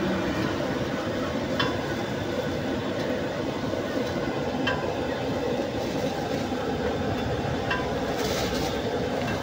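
Steady background noise of a busy street-food stall, with a light metallic clink about every three seconds and a short plastic rustle near the end.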